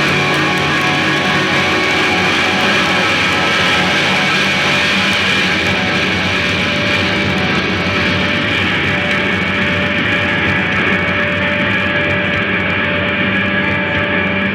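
Live noise-rock band: loud distorted electric guitars holding a dense wall of feedback drones and sustained tones over bass, with no break. The high hiss thins out from about halfway through.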